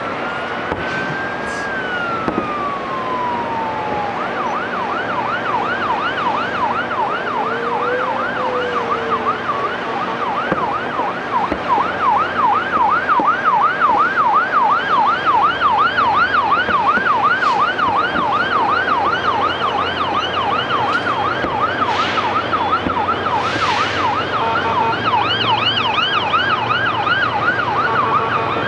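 Emergency vehicle siren: a slow wail falls away at the start, then the siren switches to a fast yelp sweeping up and down about three times a second, growing louder. A second, higher-pitched yelping siren joins about halfway through.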